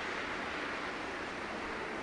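Distant jet aircraft engine noise: a steady rushing roar that slowly fades.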